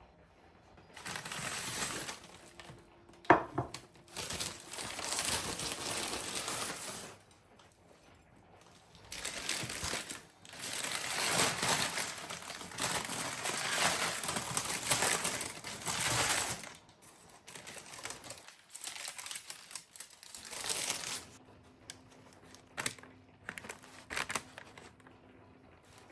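Crinkling and rustling, as of something being crumpled or handled, in several long stretches with short pauses between, with a sharp knock about three seconds in and a few light clicks near the end.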